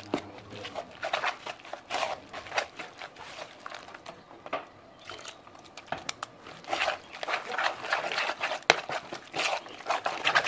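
Metal spoon stirring and scraping through thick shrimp-and-spring-onion flour batter in a plastic bowl: irregular clicks, scrapes and wet slaps of the batter. The stirring gets busier and louder over the last few seconds.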